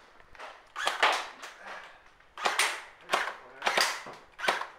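Airsoft gun shots: five sharp pops, irregularly spaced, each with a short echo trailing off.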